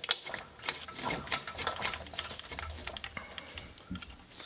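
Irregular clicks and clinks of metal shift-linkage parts and hand tools being handled as a bolt is fitted, with a low rumble partway through.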